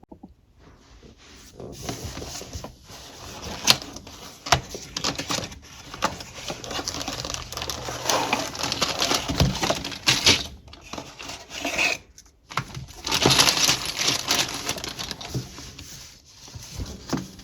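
A cardboard toy box being opened and its paper contents handled: irregular rustling and crinkling of paper and card, with scattered sharp clicks and taps, one louder click a few seconds in.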